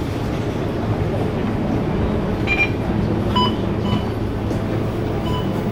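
Scania K230UB city bus's diesel engine running, heard inside the passenger cabin as a steady low hum and rumble. A few short electronic beeps sound between about two and a half and five and a half seconds in.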